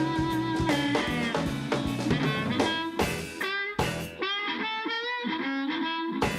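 Blues band playing, with guitar and drum kit. About three seconds in the bass drops out, leaving a wavering lead line over sharp drum hits.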